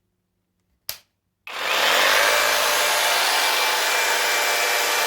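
A sharp click about a second in, then a Parkside cordless jigsaw starts up and runs steadily, its blade sawing through wood.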